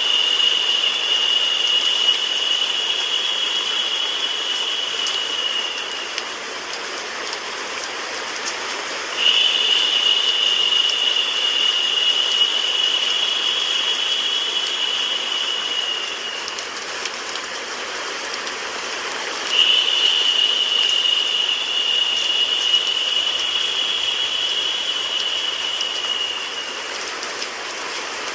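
White noise mixed with a rain sound effect: a steady, even hiss. A high, steady tone joins it three times, each lasting about seven seconds and dipping slightly before it drops out, about every ten seconds, and it is louder while that tone sounds.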